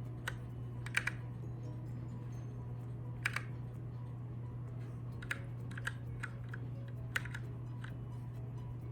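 Keychron K6 mechanical keyboard with Gateron Brown switches being typed on: about a dozen scattered key clacks, some in quick pairs, over a steady low hum.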